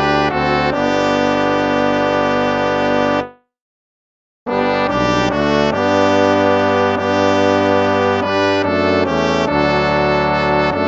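Instrumental hymn music with sustained chords. About three seconds in, one piece fades out, and after about a second of silence the next hymn begins.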